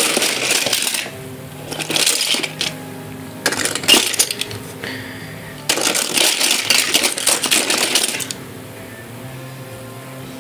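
Die-cast toy cars clinking and clattering against one another as a hand stirs through a heap of them, in several bursts of a second or two.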